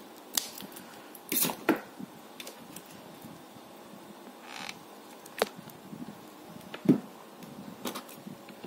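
Scissors snipping through gold rhinestone mesh trim, a few short crunching snips in the first two seconds, then scattered clicks and taps of the trim and a hot glue gun being handled, the sharpest tap about seven seconds in.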